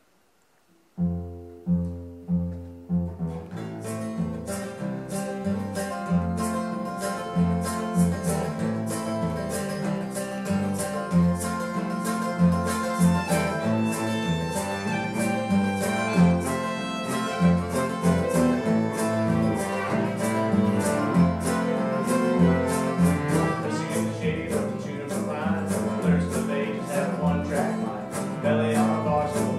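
Acoustic string band music with fiddle, acoustic guitar and acoustic bass guitar. After about a second of silence a few single plucked notes open the tune, then the full band comes in with a steady strummed beat.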